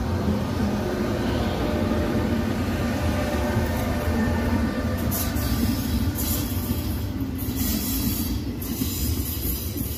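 Two E402B electric locomotives passing close by with a heavy rumble and a steady whine of several tones, followed from about halfway by the vintage Wagons-Lits sleeping cars rolling past with a rushing hiss that comes and goes.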